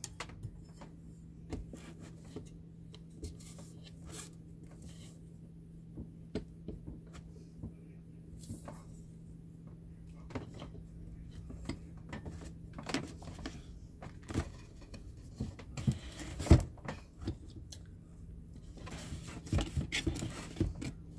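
Scattered clicks, taps and knocks of a microphone in a plastic-and-metal spider shock mount being handled and fitted onto a stand, with one louder knock about sixteen seconds in. A steady low hum lies underneath.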